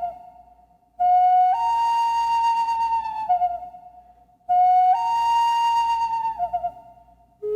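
Solo flute playing a slow, breathy phrase three times: a short lower note steps up to a longer held higher note, then drops back and fades away.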